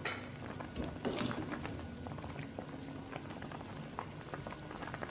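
Pot of spiced village-chicken broth boiling: a steady bubbling with many small pops.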